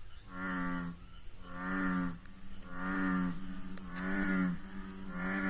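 Repeated low, snore-like call of an unidentified animal: five drawn-out pitched notes, each under a second long and about a second and a quarter apart, with a quieter steady tone sounding between them.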